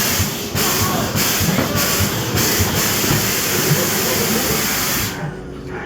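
Staged earthquake effects on a subway-car theme park ride: loud hissing over a low rumble as the car shakes. The hiss drops away about five seconds in, leaving the rumble.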